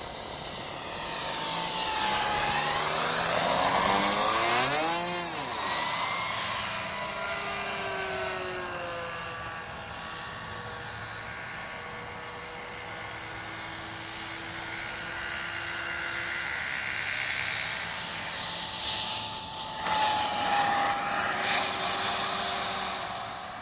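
JetCat P60 SE model turbine engine of a radio-controlled sport jet, a high steady whine that swells and shifts in pitch as the plane passes by, once near the start and again near the end.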